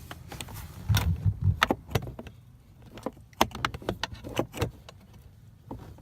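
Irregular metallic clicks and clinks of a stubby socket wrench and screws as a blower motor fan is screwed back in place, with a few dull knocks about a second in.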